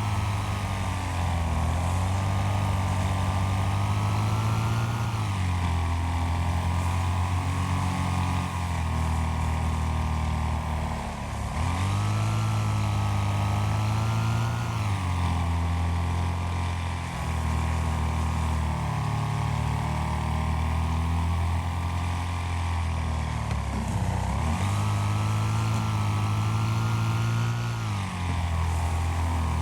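Racing lawn mower engines running hard, their pitch dropping and climbing back up several times.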